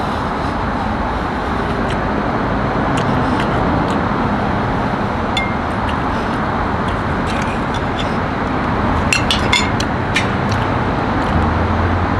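Steady background traffic noise, with a few light clicks of a metal knife and fork against a plate as chicken is cut.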